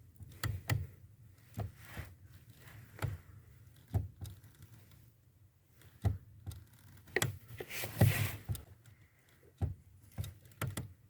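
Clutch pedal of a 1992 Volkswagen Passat B3 being pressed and released again and again, the pedal assembly giving a series of short, irregular crunching clicks. The owner suspects the crunch comes from where the pedal's return spring and its mounting bolt attach to the pedal box.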